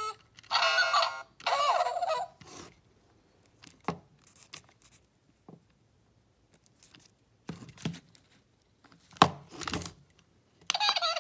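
Zhu Zhu Pets toy hamster's electronic voice chip playing two short bursts of squeaky, chirping sounds in the first two seconds, then the rustle and clicks of the plush toy being handled, with one sharp click about nine seconds in, before the toy's sounds start again near the end. The chip is a mismatched one, giving this Ryder toy the sounds of another character, ZuZu.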